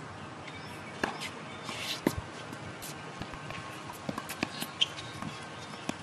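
Tennis rally on a hard court: sharp racket-on-ball hits about one and two seconds in, then a run of lighter taps from ball bounces and footsteps on the court.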